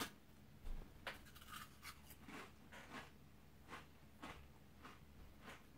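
Faint, irregular crunching of a crisp Ritz Crisp & Thins chip being chewed, with short crackles about every half second.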